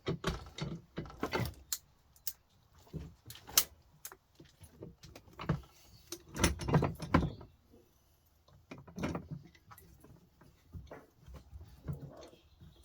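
Irregular clicks, knocks and short scrapes of hand tools and metal parts being worked while a computer power supply board is stripped for scrap, with a louder run of knocks about six to seven seconds in.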